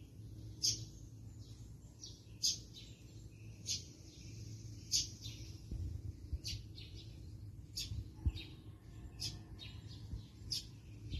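A bird chirping over and over: short, high calls about once every second or so. Under them runs a steady low rumble.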